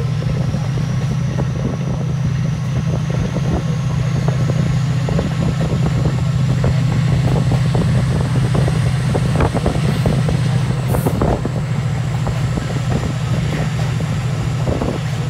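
Class 68 diesel locomotive's Caterpillar V16 engine working hard, heard from the coaches it is hauling: a loud, steady deep drone with a high whine that climbs slowly and falls away near the end, and scattered clicks.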